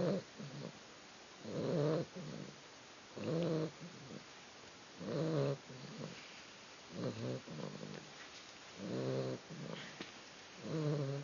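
Sleeping puppy snoring in a steady rhythm: a low snore about every two seconds, seven in all, each followed by a softer breath.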